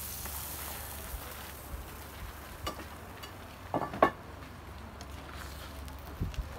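A light sizzling hiss from the meat and grill at first, then a few sharp knocks and clacks of a knife and carving fork on a wooden cutting board, the loudest about four seconds in.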